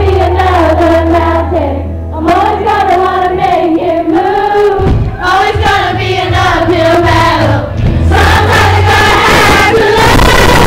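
A group of voices singing together over a loud backing track with a steady bass line; about eight seconds in, the accompaniment gets fuller and brighter.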